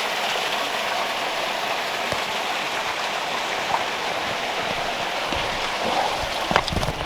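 Several small trickles of water spilling down over rocks beneath a boulder, a steady splashing rush. A few low knocks come near the end.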